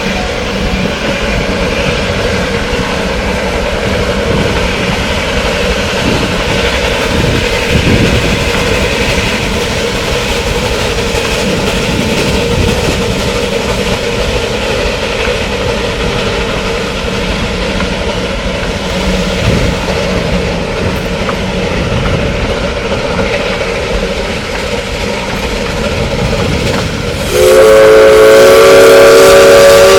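Narrow-gauge steam train running with a steady rumble, then near the end the steam locomotive's whistle comes in suddenly and loud, a held chord of several notes.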